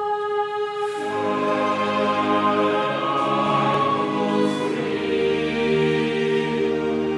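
Small choir singing sustained chords; the upper voices hold a note and the lower voices come in about a second in, filling out the harmony.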